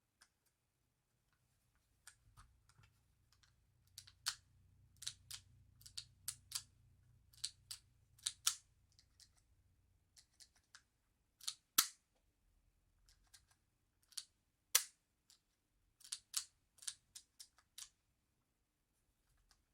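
Irregular sharp clicks and clacks of small airsoft 1911 pistol parts being handled and fitted, with two louder snaps about halfway and three-quarters of the way through.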